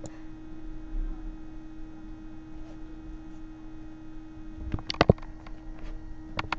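Quiet room with a steady low hum; a few short clicks or knocks about five seconds in, and one more near the end.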